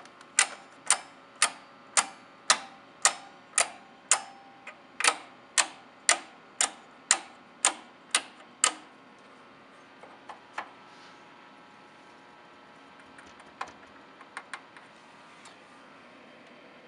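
Toggle switches on an Andover Controls AC256M relay output board flipped one after another: sharp clicks about two a second for roughly nine seconds, then a few scattered fainter clicks.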